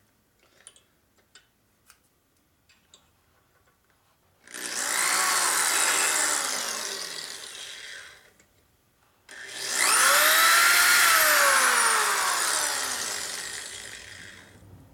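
Electric drill boring a hole for the next Lock-N-Stitch repair pin along a crack in a cast-iron Ford four-cylinder flathead block, running twice for about four and five seconds. Each time its whine rises quickly as it spins up, then falls slowly as the run dies away. A few light clicks come first.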